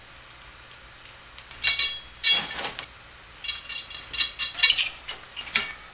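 Stainless steel bolt and its hardware clinking against metal pipe as the bolt is fitted into a freshly drilled mounting hole. Several bunches of short metallic clinks that ring briefly, the busiest and loudest near the end.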